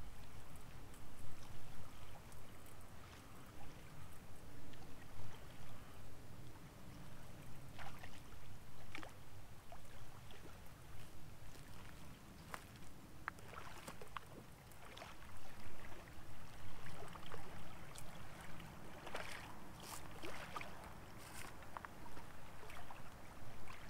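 Light splashing water and scattered faint clicks and knocks as a small channel catfish is reeled in to a rocky riverbank; the clicks come more often in the second half.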